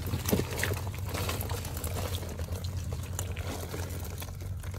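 Hands rummaging through a wet heap of live fish and snail shells on a net make scattered small wet clicks, crackles and rustles.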